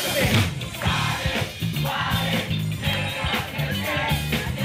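Live pop-rock band playing on stage: drums, electric bass, electric guitar and keyboard. The full band comes in with a crash right at the start, then settles into a repeating bass line under steady cymbals.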